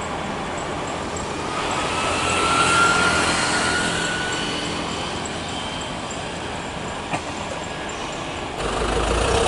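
Boeing 737-800 airliner landing: the jet noise of its CFM56 turbofans is a steady rush with a whine that swells about three seconds in as the plane passes and touches down, then eases during the roll-out. Near the end the sound changes abruptly to a louder low rumble.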